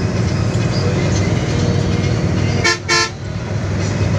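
Bus engine and road noise running steadily, with two short toots of the bus horn in quick succession about two and a half seconds in.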